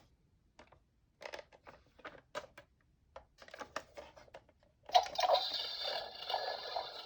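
Scattered light plastic clicks and taps, then about five seconds in a toy emergency vehicle's electronic sound module switches on suddenly with a steady, hissing electronic noise from its small speaker.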